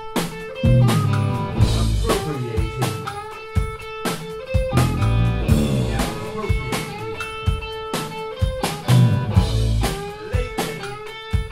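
Live rock trio playing: electric guitar with sustained, bending notes over bass guitar and drum kit.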